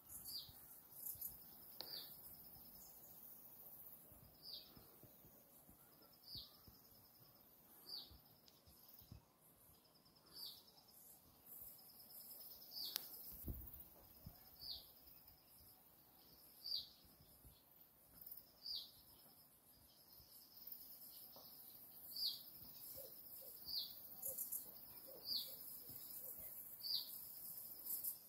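A bird calling over and over, a short high falling note repeated roughly every one and a half to two seconds, over a faint high hiss of outdoor ambience.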